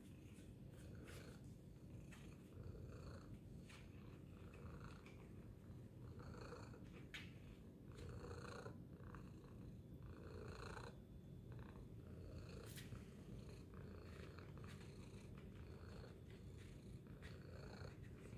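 Tabby cat purring steadily, a low continuous rumble.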